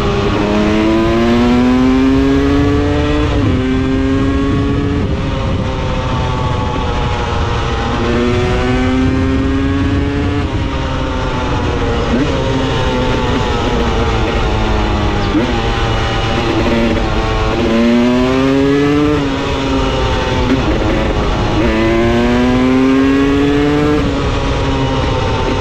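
Husqvarna TE300 two-stroke enduro motorcycle being ridden hard. The engine pitch climbs through each gear and drops sharply at every shift, over and over, as the bike accelerates and eases off.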